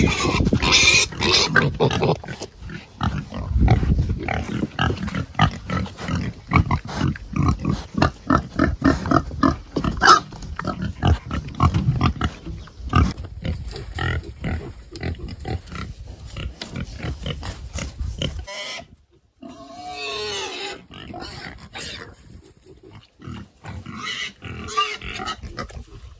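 Pigs grunting in a fast run of short, repeated grunts.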